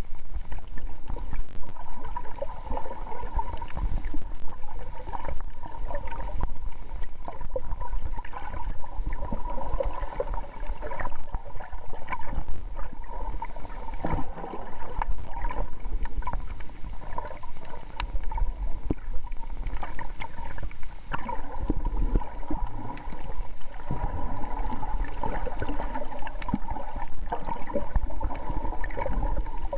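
Underwater ambience picked up by a submerged camera: a constant low rumble of water with a steady hum and many small scattered clicks and crackles.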